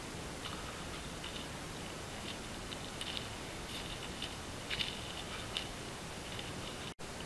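Footsteps crunching irregularly over dry pine needles and twigs, faint against a steady hiss; the sound drops out for an instant near the end.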